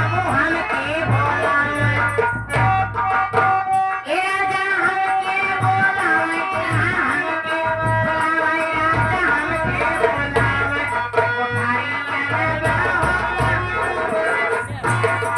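Nautanki band music: a wavering instrumental melody over a steady drum beat.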